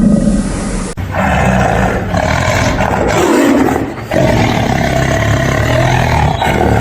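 A big cat roaring in long, loud calls, broken sharply about a second in and again about four seconds in.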